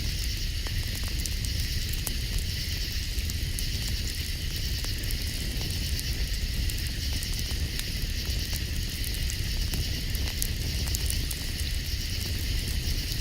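Campfire crackling with scattered small pops, over a steady high-pitched night chorus.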